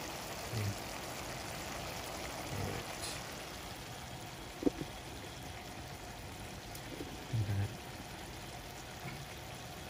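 Chicken pieces stewing in their juices in a stainless steel pan, a steady bubbling hiss, with a few soft low thuds and a brief click about halfway through.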